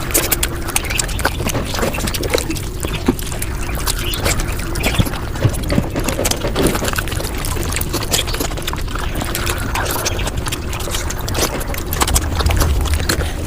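Close-miked eating of mutton, sped up five times: a dense, unbroken stream of quick chewing and mouth clicks.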